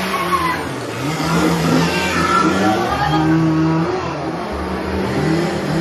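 Chainsaw engine revved again and again, its pitch rising and falling every second or so.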